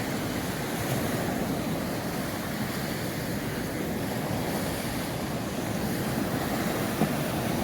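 Surf breaking on a reef and washing in, a steady rush with no single crash standing out.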